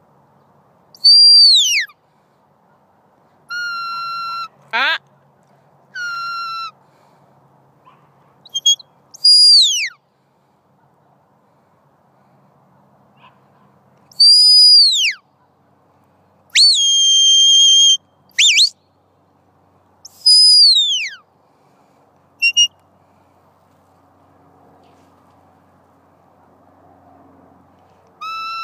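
A handler's sheepdog whistle giving a series of herding commands to a border collie working sheep: about ten separate blasts with pauses between, some sliding sharply down in pitch, some held as steady notes, and one quick rising whistle.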